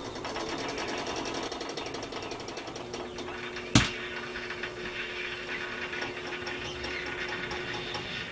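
Fast, steady mechanical rattling, with one sharp click about four seconds in and a steady low hum through the second half.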